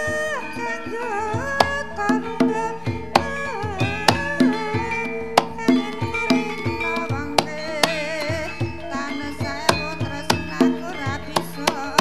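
Javanese gamelan-style accompaniment for a ketoprak dance: hand-drum (kendang) strokes about twice a second over held tones and a wavering melody.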